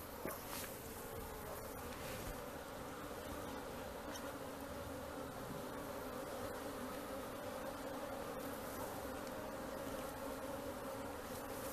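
Steady buzzing hum of a mass of honey bees (Apis) during a colony capture, many bees droning together; the bees are calm.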